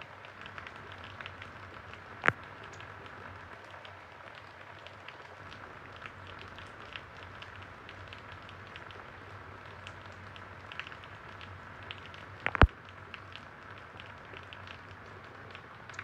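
Light rain pattering and dripping, a steady hiss full of small ticks, with two loud sharp taps, one about two seconds in and another about ten seconds later.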